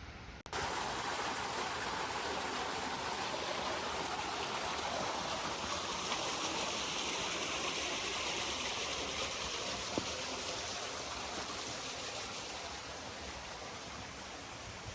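Rushing water, a steady even wash of sound that sets in after a brief break about half a second in and eases slightly near the end.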